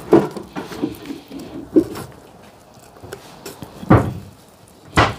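Several knocks and bangs, the two loudest about four and five seconds in.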